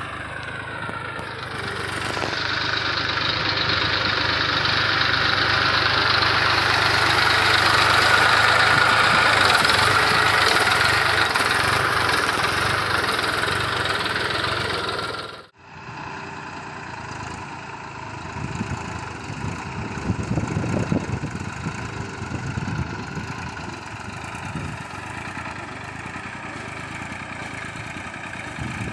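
Massey Ferguson 241 tractor's three-cylinder diesel engine running steadily. It is loud through the first half, cuts off sharply about halfway, then goes on quieter and more even.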